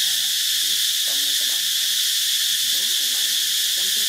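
Steady, high, unbroken insect chorus, with faint short wavering calls underneath.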